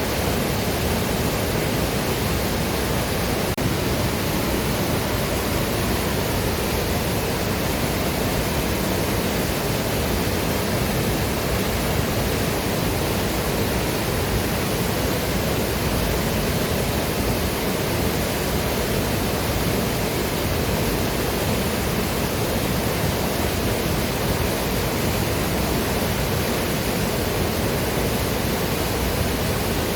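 Waterfall and river water rushing in a steady, unbroken roar of spray and flow.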